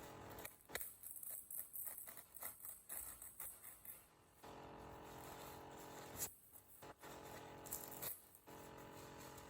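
Paper towel handled close to the microphone: irregular crinkling and crackling for about four seconds, then shorter bursts of crackle near the end. Underneath runs a steady electronic hum with a high hiss, which the uploader puts down to a laptop.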